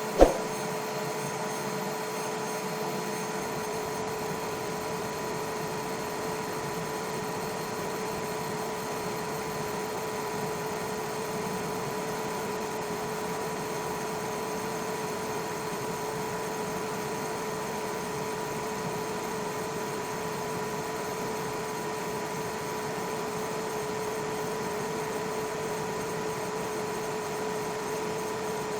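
xTool F1 Ultra fiber laser engraver running while engraving aluminum: a steady hum with two held tones over a fan-like hiss, with one sharp click just after the start.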